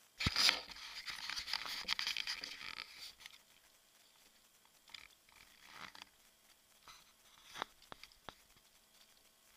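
Rubber boots walking on dry mud and grass: a dense stretch of scuffing and crunching for the first three seconds, then a few separate footsteps about a second apart.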